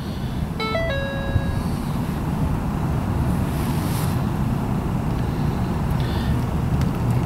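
An electronic beep tone, a brief higher note stepping down to a held lower one, sounds about a second in. A steady low rumble runs underneath throughout.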